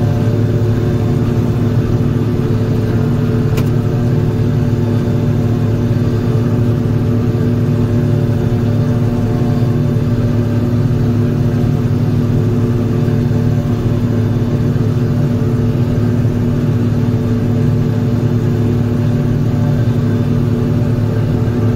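John Deere 5830 self-propelled forage harvester running steadily while chopping corn for silage: a loud, even drone with several steady tones.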